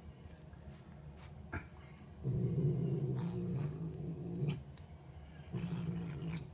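Domestic cat growling low over a freshly caught mouse, a guarding growl over its prey, in two bouts: a long one from about two seconds in and a shorter one near the end. Small clicks fall in the quieter gaps.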